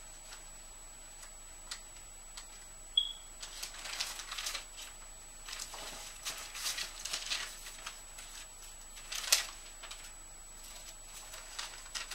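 Paper letters and cards being handled and leafed through: irregular bursts of rustling and crinkling with a few sharp clicks, busiest in the middle. A very short high tone sounds about three seconds in.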